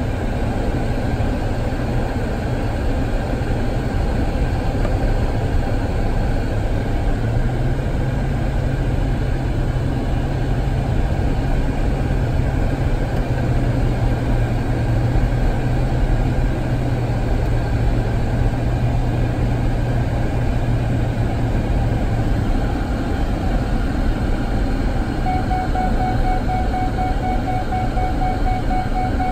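Steady road and engine noise inside a moving car's cabin. A low engine drone steps up in pitch about a quarter of the way through, drops back past the middle and fades out. A faint steady tone joins near the end.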